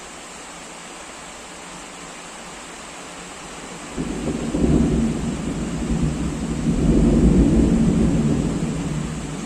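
Steady rain hiss, then thunder breaking suddenly about four seconds in: a deep rumble that swells twice, loudest a little after the middle, and eases off near the end while the rain goes on.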